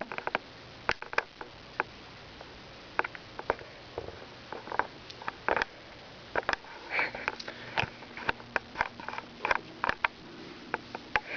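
Budgie pecking and stepping in its cage: irregular sharp clicks and taps, sometimes several in quick succession.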